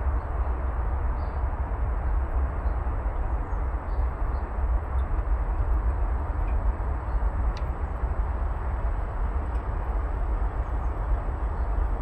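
Vaillant Arotherm Plus 7 kW air-source heat pump outdoor unit running, heard up close: a steady whoosh with a strong low rumble, its coil frosted over in freezing conditions.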